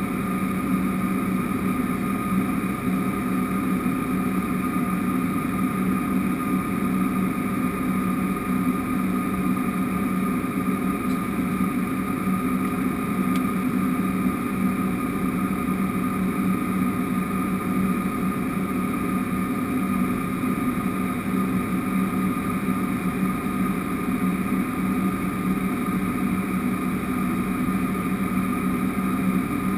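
Cessna 208B Caravan's Pratt & Whitney PT6A turboprop and propeller heard from inside the cockpit in flight: a steady low drone with a higher whine above it, unchanging throughout.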